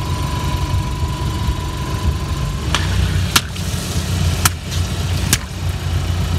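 Car engine idling with a steady low rumble while its tyre presses down on water-filled modelling balloons; four sharp pops in the second half, less than a second or so apart, as balloons burst under the wheel.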